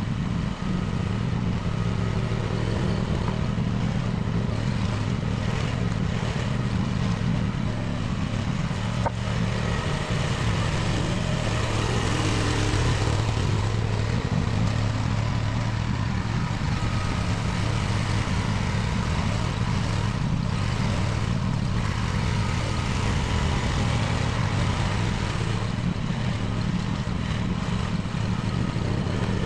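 Small mini excavator engine running steadily, with a few faint knocks along the way.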